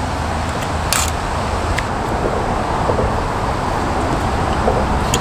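Steady low rumble and hiss of outdoor background noise, with a light metal clink of utensils about a second in.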